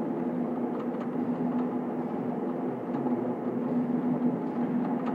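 Automatic can filling and sealing line running: a steady machine hum with a constant tone from the motors and conveyor, with a few faint ticks scattered through it.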